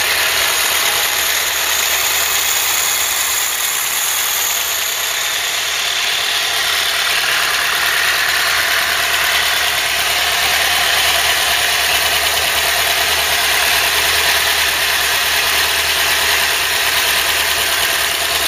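Freshly rebuilt Ford 2.0 Pinto four-cylinder engine idling steadily. Its valve clearances are only on a first setting, and the owner finds it a little tappy.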